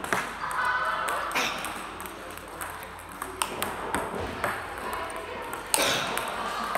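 Table tennis rally: the ball clicking off rubber bats and bouncing on the table, with sharp knocks from backhand drives, in an echoing sports hall with background chatter.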